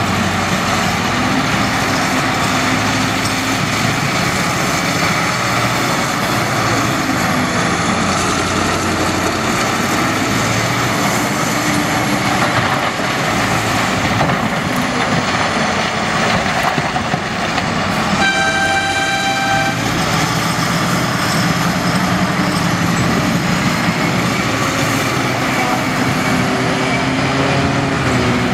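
Big diesel engines of a Caterpillar 992G wheel loader and a 777C haul truck running under load, their pitch rising and falling as the loader works. Near two-thirds through, a horn blows once for about a second and a half.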